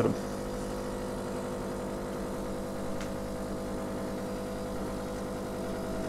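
Philips EP2220 bean-to-cup espresso machine's pump humming steadily as it pushes water through the ground coffee while brewing an espresso shot.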